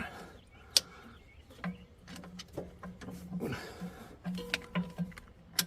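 Hydraulic hose quick-couplers being handled and snapped together, with a few sharp metal clicks, one about a second in and one near the end, amid smaller knocks.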